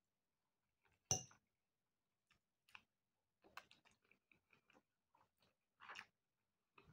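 Quiet close-up chewing of macaroni and fried sausage: a sharp click about a second in, then a run of short soft wet mouth clicks as the food is chewed.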